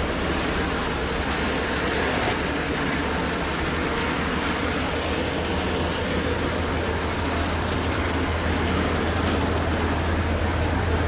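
Steady ambient din of a busy covered fish market: an even background noise over a constant low hum, with no single sound standing out.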